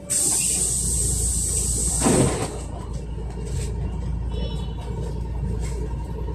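Interior of a LiAZ 5292.67 city bus under way: steady low rumble of its Weichai compressed-natural-gas engine and the road. A sharp hiss of compressed air from the bus's pneumatic system starts suddenly, runs for about two seconds and ends in a short loud puff.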